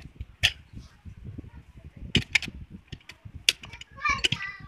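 Several sharp metallic clicks and knocks, irregular and a second or so apart, from metal transmission parts and tools being handled at an aluminium automatic transmission case.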